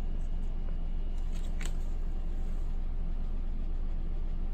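A steady low hum of room noise, with a faint rustle and a light click of a paper hang-tag booklet being handled about a second and a half in.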